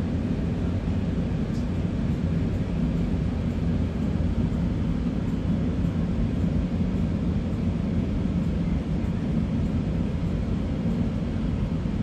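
Steady low outdoor rumble, even throughout with no distinct events.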